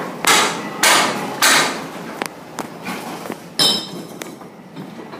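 Hammer blows: three heavy strikes about half a second apart, then several lighter knocks and one more strike with a brief metallic ring a little after three and a half seconds in.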